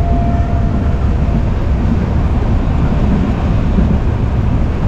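Indian Railways passenger coach running at speed, a steady loud rumble of wheels on track heard through an open window, with a faint steady whine over it for about the first second and a half.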